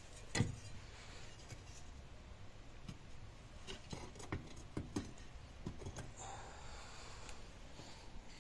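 Scattered light knocks, clicks and scrapes as a square steel tube is set on a small cinder-block furnace and the inside of the furnace is worked by hand. The loudest knock comes about half a second in.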